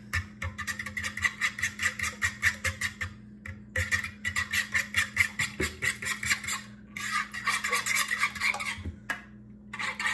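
Fork whisking raw eggs in a plastic mixing bowl, its tines hitting the bowl in a fast, even rhythm of about five strokes a second. The whisking breaks off briefly a couple of times, and in the last few seconds it turns into a steadier scraping.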